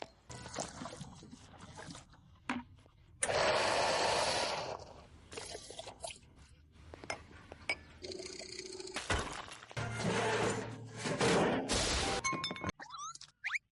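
A quick succession of assorted short sound effects, each starting and cutting off abruptly, with a loud crashing burst about three seconds in and a longer loud stretch near the end.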